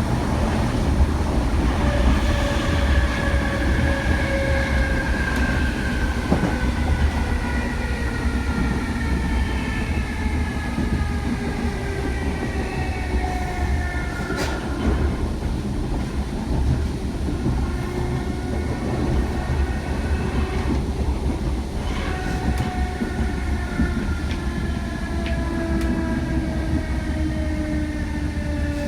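DART electric train running on the rails with a steady low rumble and occasional clicks, its motors whining in several tones that slide slowly down in pitch in two long sweeps as the train slows.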